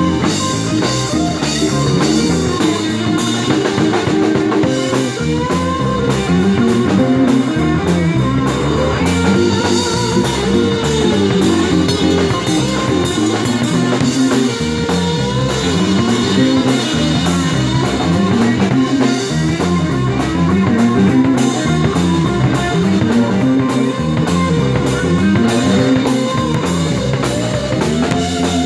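Live blues band playing: electric guitar and bass over a drum kit, with a lead line that bends and slides in pitch.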